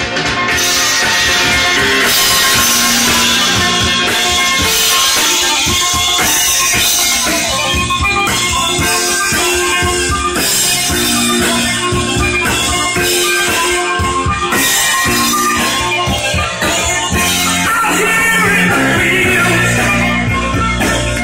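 Rock music with drums and guitar, played from a vinyl record on a Kenwood KD-500 direct-drive turntable and heard through the stereo's speakers.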